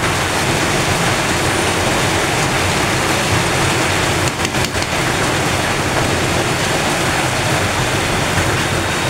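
Heavy rain pouring down, a loud, steady, even hiss, dipping briefly about four and a half seconds in.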